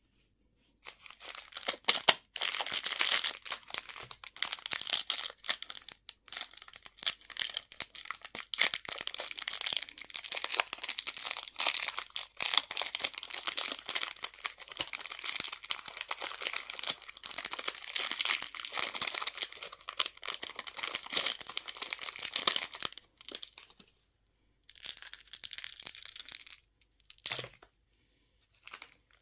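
A candy wrapper being crinkled and torn open in a long, continuous stretch of crackling. After a short pause there is a brief second burst of crinkling, then a single sharp click near the end.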